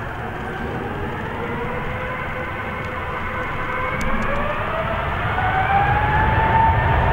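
The four jet engines of an Airbus A380 spooling up for takeoff: a whine that rises slowly in pitch over a rumble that grows louder in the last few seconds.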